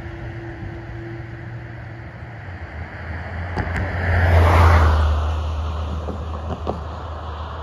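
A car passing by on the road: its tyre and engine noise swells to a peak about halfway through, then fades away.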